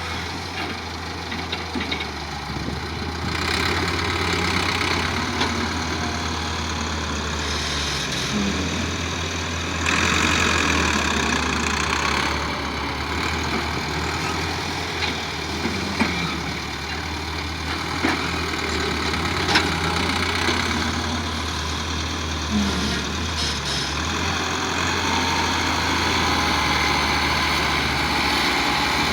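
Diesel engine of heavy earthmoving machinery running steadily, rising louder for a few seconds twice, with a few sharp knocks.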